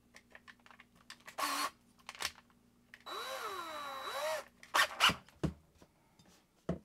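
Black+Decker cordless drill having a small bit tightened into its keyless chuck. The bit and chuck click as they are handled, then the motor runs for about a second and a half with the chuck held in the hand, its pitch rising and falling twice, followed by a few sharp clicks.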